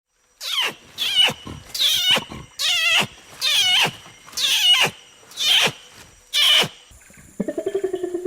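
Orangutan calling: a series of eight short, high squealing calls, each wavering in pitch. About seven seconds in, a lower, rapidly pulsing grumble takes over.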